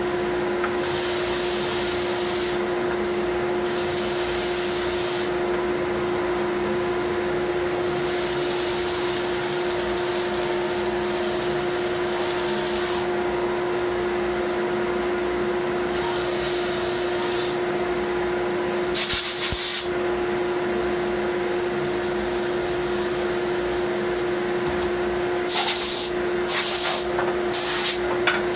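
Electric sander running steadily while wood is sanded, a rasping hiss coming and going every few seconds as the piece is pressed to the paper. Short, louder hissing blasts come once about two-thirds of the way in and several times near the end.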